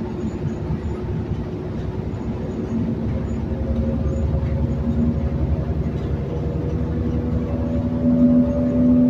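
Cummins Westport ISL G natural-gas engine and ZF automatic transmission of a New Flyer XN60 articulated bus, heard from inside the cabin while under way, with a steady low rumble. From about three seconds in, a whine climbs slowly in pitch and grows louder as the bus pulls.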